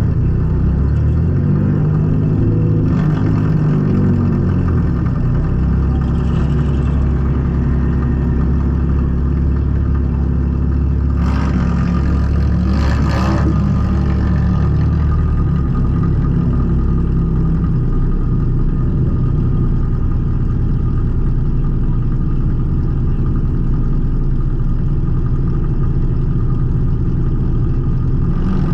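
A junk race car's engine running, heard from inside the stripped cabin: the revs rise and fall over the first few seconds, then it settles to a steady idle. A short burst of noise comes about eleven to thirteen seconds in.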